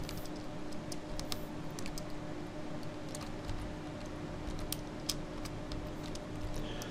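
Scattered, irregular light clicks of computer input at a desk, keyboard keys and pointer clicks, over a faint steady hum.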